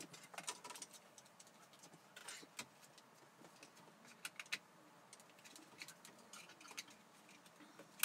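Faint scattered clicks and rattles of plastic car-radio wiring-harness connectors and their wire bundles being handled and fitted together, with a sharper click at the end.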